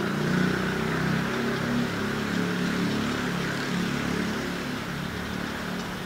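A motor vehicle's engine running: a low, wavering hum that sets in just before and eases off near the end.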